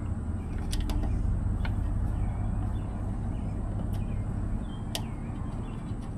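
A steady low rumble with a few light, sharp clicks spread through it, as small screw-head bolts are fastened into the mounting flange of a fuel sending unit.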